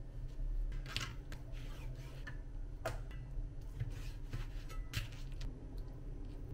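Santoku knife cutting raw chicken breast on a plastic cutting board: a series of short, sharp cuts and taps of the blade through the meat onto the board, about eight of them, over a low steady hum.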